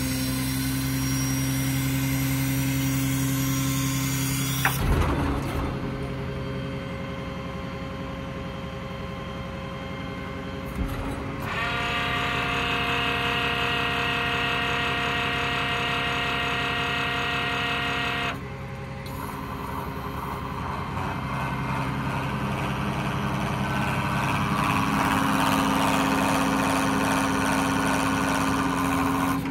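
IMT 3820 hydraulic crane on a Ram 5500 service truck being worked, with a steady mechanical hum and whine from its hydraulic drive. The sound shifts about 5 seconds in and again about 11 seconds in. A higher, fuller whine runs from about 12 to 18 seconds, and the sound swells again near the end.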